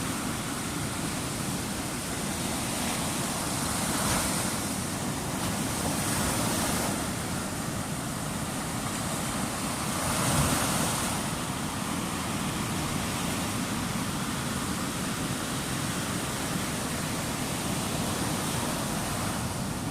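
Ocean surf washing onto the shore, a steady rush with louder surges about four, six and ten seconds in.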